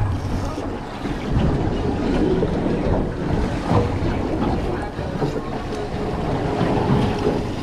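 Wind buffeting the microphone over water sloshing around a small boat at sea, a constant rough rumble. A faint thin steady tone sounds over the last couple of seconds.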